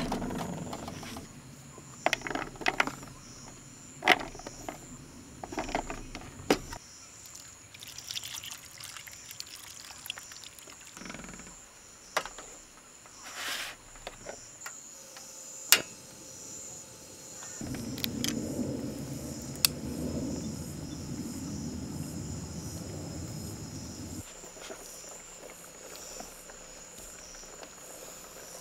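Assorted sharp clicks and taps for the first several seconds, then a steady rushing noise for about six seconds, starting about 18 seconds in. Underneath it all runs a constant high-pitched insect drone.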